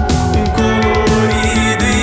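Rock band playing, with guitar and a steady drum beat.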